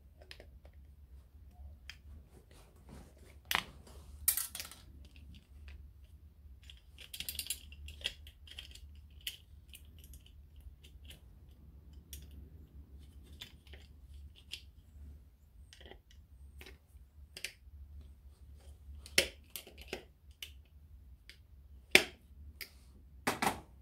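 Scattered clicks, knocks and a brief scrape of pliers and small metal parts being handled on a tape recorder's sheet-metal chassis as it is taken apart, with the loudest knocks near the end.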